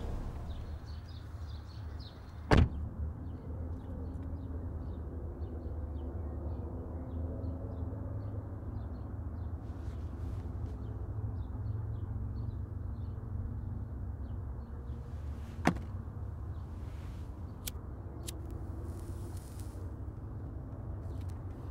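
A car door slamming shut, heard from inside the cabin, about two and a half seconds in, over a steady low rumble. A second, smaller sharp click comes about three-quarters of the way through.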